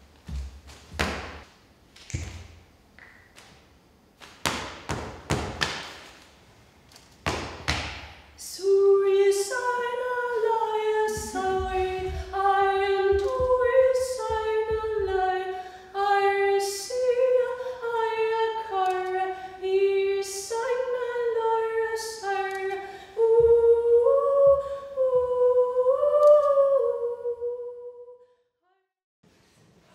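A solo woman's voice singing a slow melody unaccompanied, after several seconds of short, sharp breathy noises and thumps. The singing stops suddenly near the end.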